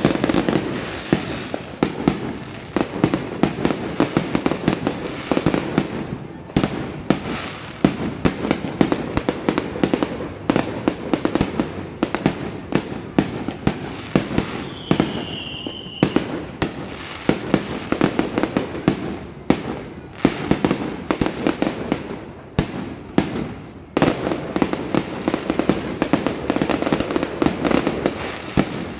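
Fireworks display going off continuously: rapid, dense bangs and crackling with hardly a pause. A brief high whistle sounds about halfway through.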